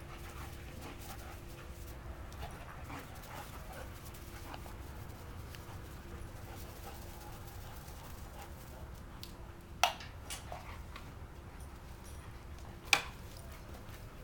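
Two dogs panting while they chase and play-wrestle. Two short, sharp sounds stand out, about ten seconds in and again three seconds later.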